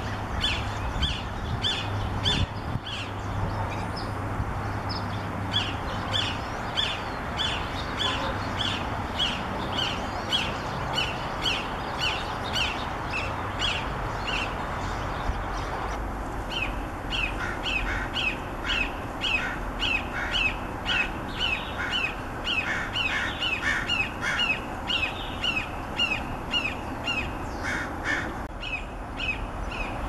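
Red-shouldered hawk calling in long runs of repeated, downslurred "kee-ah" screams, about two a second, with short breaks about 4 and 15 seconds in.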